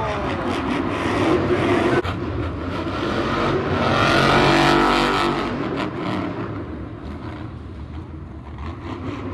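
Monster truck engine, a supercharged V8, revving hard. It swells to its loudest about four to five seconds in, then fades away.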